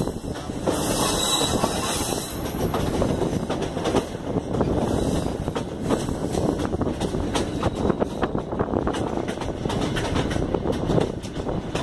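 Train running along the track, heard from a carriage: a steady rumble of wheels with frequent rattling clicks and knocks.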